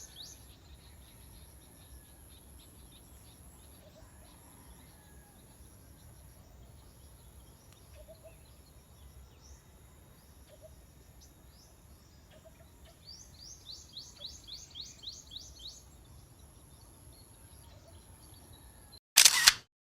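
Birds calling in the open: a fast run of high, rising chirps, about four a second, for a few seconds near the end, over a steady high, shrill hum and faint soft low notes. A loud, short burst of noise cuts in just before the end.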